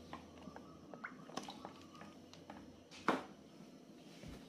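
Last drops of cooking oil dripping from the bottle into a wok, with faint scattered small clicks and one louder click about three seconds in.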